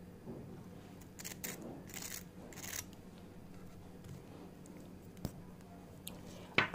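Quiet crunching of a crisp, breadcrumb-coated deep-fried baby corn fritter as it is pressed and broken with a fork: four short crackles between about one and three seconds in, then a single click, over a low steady hum.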